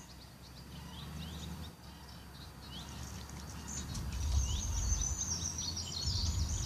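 Birds calling: a string of short falling chirps repeated every second or so, joined about halfway through by busier, higher twittering song. A low rumble, like wind on the microphone, swells under it in the second half.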